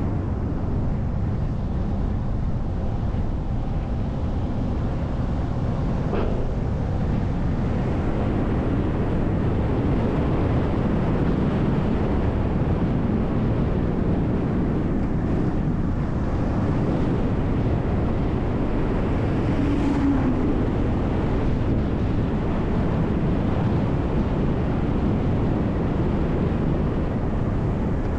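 City bus on the move: steady low rumble of engine and tyres, with wind noise on the microphone.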